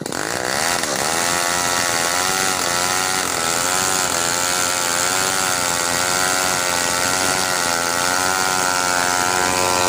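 Two-stroke chainsaw revving up in the first second, then running flat out with its pitch wavering up and down as it works through the wood.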